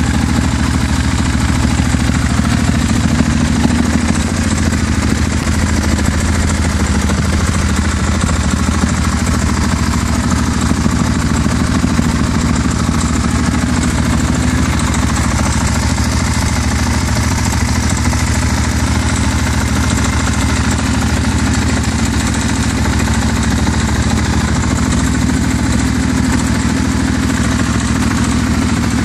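KTM 690 SM's single-cylinder engine idling steadily through an Akrapovic titanium slip-on exhaust.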